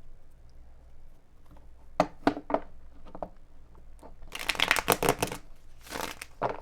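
A tarot deck being shuffled by hand: a few light taps, then a dense run of rapid card flicks about four seconds in and a shorter run near the end.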